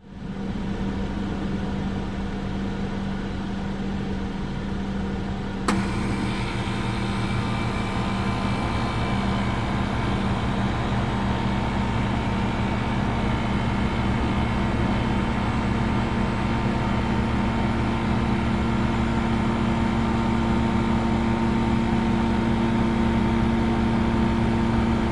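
A 1990 Lennox HS18 central air conditioner with a Copeland reciprocating compressor starting up and running with a steady hum. About six seconds in, a click comes and a hissier layer of noise joins the hum, then the unit runs on steadily.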